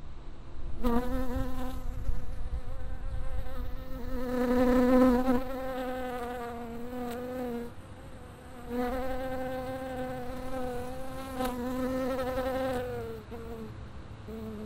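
A buzzing insect heard in a binaural recording, its drone swelling and fading as it moves. It comes in two long passes with a short break about eight seconds in, then a few brief buzzes near the end.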